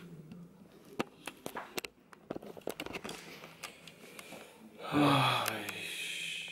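Small clicks and knocks of a handheld camera being moved, then about five seconds in a man lets out a loud sigh that falls in pitch, trailing into a rustle.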